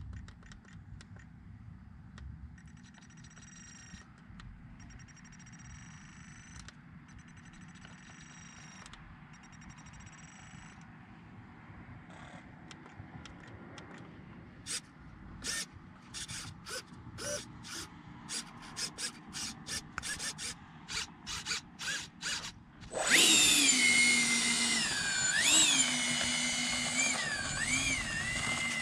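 Twin electric ducted fans of a Freewing AL37 RC airliner start up near the end with a sudden loud whine, the pitch rising and dipping as the throttle is worked. Before that comes a run of short, rapid clicks.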